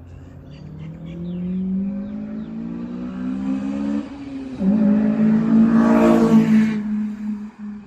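Honda Civic Type R's K20Z4 four-cylinder, breathing through an Invidia Q300 exhaust and Injen intake, at full throttle: the revs climb for about four seconds, drop at a gear change, then climb again, louder, until the throttle closes near the end.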